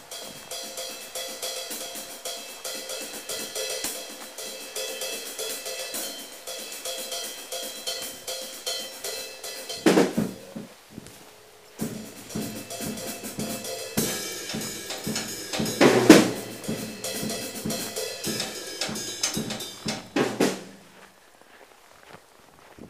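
Drum kit played in a steady rock beat of snare, hi-hat and bass drum with cymbals, broken by a short pause about halfway and punctuated by a few loud accented hits, ending shortly before the end.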